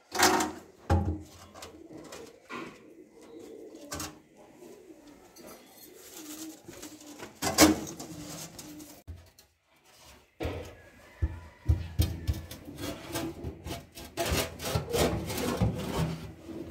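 Knocks, rubbing and rattling from a corrugated plastic drain hose and a stainless steel kitchen sink being handled and fitted, with sharp knocks near the start and about halfway, and a denser stretch of scraping and clattering in the second half. A pigeon coos in the background.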